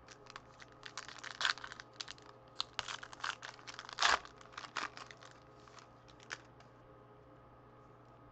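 A foil wrapper of a 2013-14 Prestige basketball card pack being torn open and crinkled by hand: a run of crackling rustles, loudest about four seconds in, dying away after about six and a half seconds.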